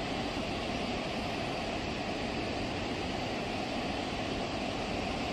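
Steady rush of water discharging through a dam's open spillway gates and churning into the river below.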